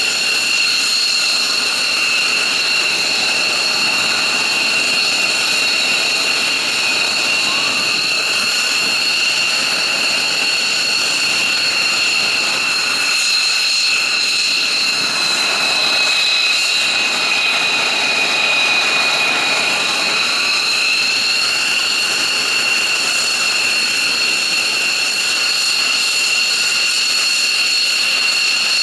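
F-15J fighter's Pratt & Whitney F100 turbofan engines running at ground idle, a steady high-pitched jet whine over a rushing hiss, the pitch sagging slightly and recovering a little past the middle.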